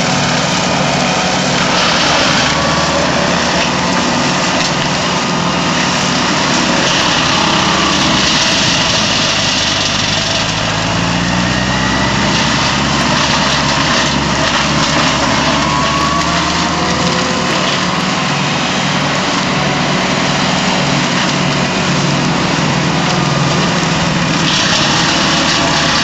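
TFVJ forest mulcher's hammer rotor spinning on a tractor and shredding brush and small trees, over the tractor engine running steadily under load. The engine note wavers a little as the load changes.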